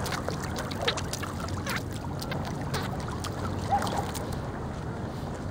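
Sea water lapping, with small scattered splashes from a dog paddling in a life jacket, over a steady low rumble.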